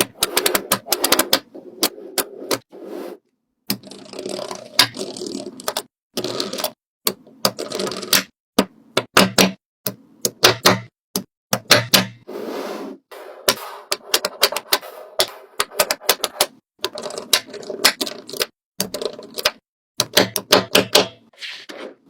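Quick, irregular runs of sharp clicks and taps, broken by short pauses, like small hard objects being handled and tapped.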